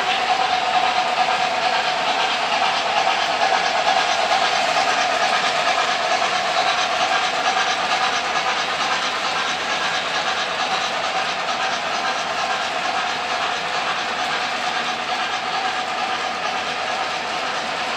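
O gauge model freight train, hauled by an MTH RailKing 0-6-0 steam locomotive, rolling past on three-rail track: a steady running noise of wheels on rails that eases slightly in the second half as the cars go by.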